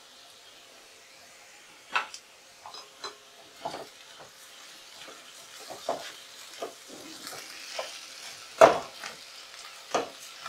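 Wooden spatula stirring and scraping sliced potatoes in a metal kadhai, with irregular knocks and scrapes against the pan starting about two seconds in, the loudest one late on. Under them is a light sizzle of the potatoes frying in oil on a medium flame.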